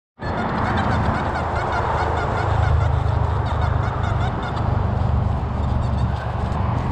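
Deus metal detector sounding a continuous chatter of low iron tones as the coil sweeps over ground packed with iron junk.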